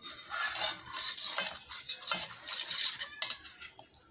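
Metal spoon scraping around the inside of a stainless steel pot, stirring a watery cornstarch mixture, in repeated strokes that stop about three seconds in.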